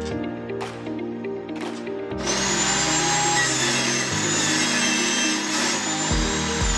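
Background music with a steady beat; about two seconds in, a power tool starts running on MDF board, a loud noisy whine that carries on under the music.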